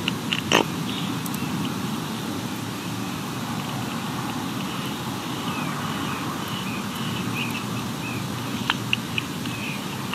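Steady wind noise on an outdoor microphone. A short crow call comes about half a second in, soft faint chirps follow in the middle, and a few sharp clicks come near the end.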